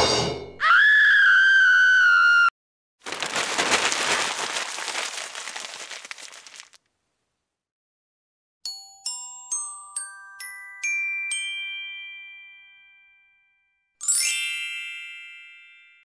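A string of soundtrack effects. A struck hit opens it, then comes a held whistling tone and a fading burst of crackling noise. After a pause, six glockenspiel-like notes climb one after another and ring on, and a shimmering chime-like strike near the end dies away slowly.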